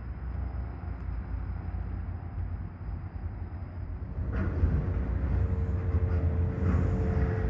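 Steady low engine rumble of heavy vehicles or machinery. About four seconds in it gets louder, with a steady whine on top.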